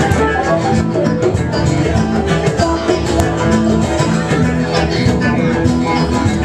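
Live band playing an instrumental passage: guitar notes over bass and a steady drum beat, with no singing.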